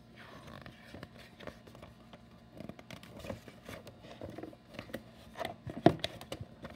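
Pages of a paperback picture book being turned and smoothed by hand: paper rustling with scattered light clicks and taps, the sharpest a little before the end.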